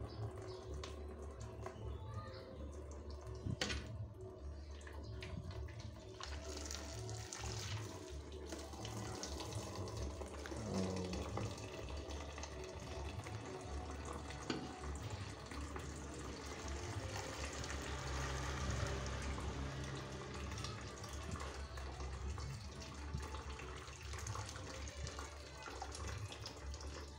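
Water trickling and dripping as freshly boiled cassava leaves drain in a woven bamboo basket, a steady wet run with a low hum beneath it and a couple of light knocks.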